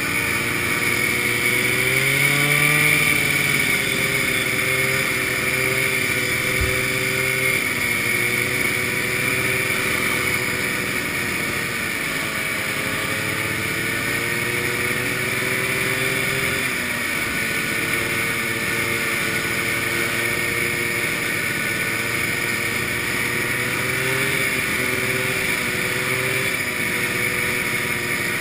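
Vintage snowmobile's two-stroke engine running steadily while the sled travels over bare pavement, its pitch wavering with the throttle and rising briefly about two to three seconds in.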